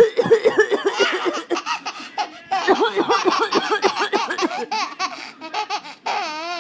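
An 11-month-old baby laughing in rapid strings of laughs, about six or seven a second. There is a brief lull about two seconds in before the laughter picks up again.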